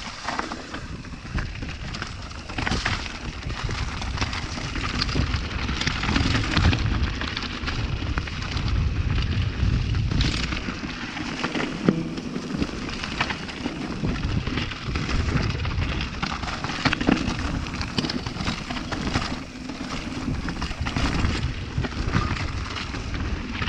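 Mountain bike descending rocky singletrack: wind rumbling on the action-camera microphone over the hiss of tyres on loose rock, with the bike's frequent sharp knocks and rattles over bumps.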